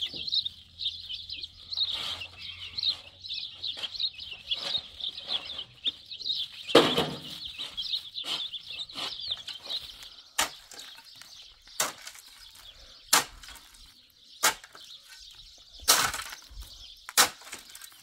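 Many small birds chirping busily, with one brief louder sound about seven seconds in. From about ten seconds in, sharp knocks come at a steady pace of about one every second and a half while the chirping carries on more faintly.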